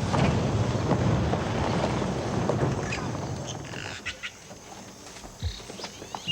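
A steady rushing noise that fades out over the first few seconds. It gives way to scattered chirping calls of birds.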